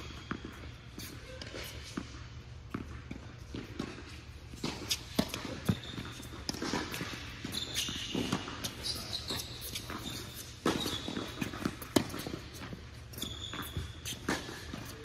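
Tennis on an indoor court: the ball bounced before a serve, then a rally of racquet strikes and ball bounces, with short high sneaker squeaks on the court surface.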